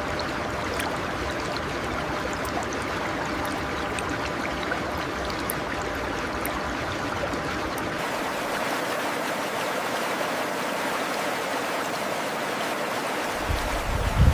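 Mountain stream flowing steadily, a continuous even rush of water. Low rumbling thumps come in near the end.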